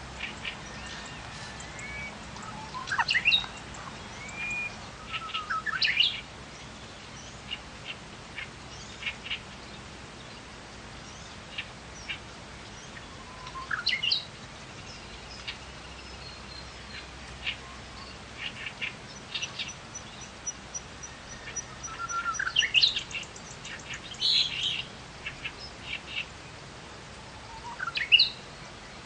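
Birds calling: sharp rising and falling whistles and short chirps every few seconds, with an even run of high ticks about two-thirds of the way through.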